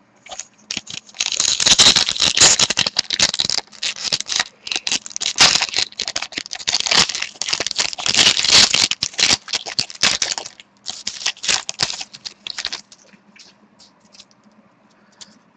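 Hands tearing open and crinkling a hockey card pack's wrapper and handling the cards inside: a dense, irregular crackle of many sharp ticks that stops a few seconds before the end.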